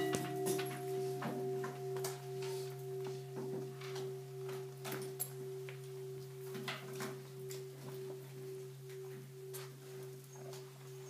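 Large Buddhist bowl bell ringing on after being struck, a long sustained tone with a slowly wavering pulse and a deeper hum beneath it, marking the opening of the service. Faint clicks and shuffles sound here and there.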